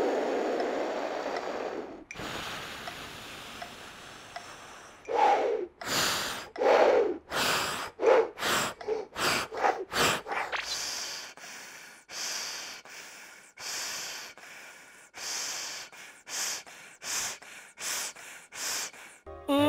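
A person's breathing exercises: two long, forceful breaths, then a run of short, sharp breaths in and out, the later ones drawn through a plastic breath-training tube.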